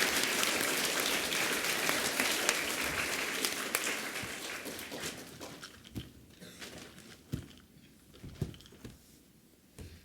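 Audience of schoolchildren applauding, the clapping dying away over about five seconds, then a few scattered low thumps.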